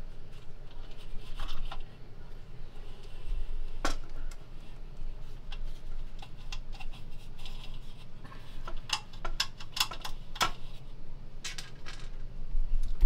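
Scattered metallic clicks and clinks of a sheet-metal fluorescent light fixture being worked free and lowered from the ceiling, with a single sharp click about four seconds in and a quick run of clinks near the end.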